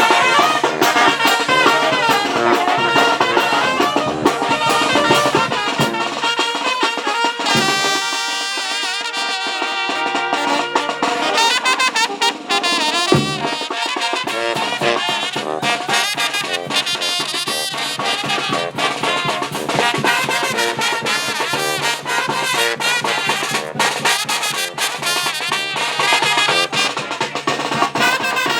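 A brass band playing, with trumpets and trombones over a drum beat. From about 7.5 to 13 seconds in, the bass drops out while the horns hold long chords, then the full band comes back in.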